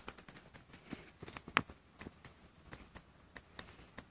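Light, irregular tapping and clicking, several times a second, as coffee is shaken and tapped out of a small container into a stainless steel cup.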